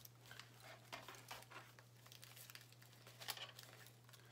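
Near silence: faint scattered crinkles and taps of hands pressing soft polymer clay onto a sculpture, the loudest a little past three seconds in, over a steady low electrical hum.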